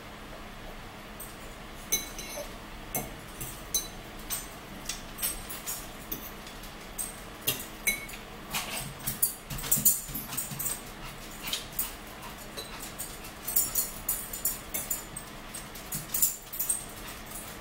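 Close-up eating sounds: chewing and mouth smacks, with a fork and spoon clicking and scraping against a bowl and plates in many short, irregular taps.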